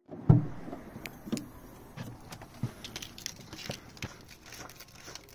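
A loud thump just after the start, then scattered light knocks and clicks, with a faint jangle, as of things being handled and set down. No engine is running.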